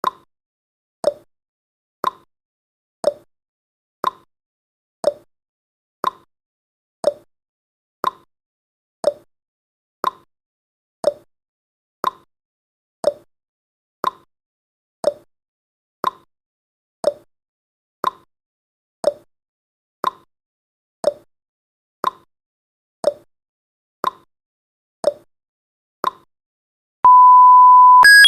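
Countdown timer sound effect ticking once a second with a short sharp tick. Near the end the ticks stop and a steady electronic beep sounds for about a second, followed by a higher beep of several tones as the countdown ends.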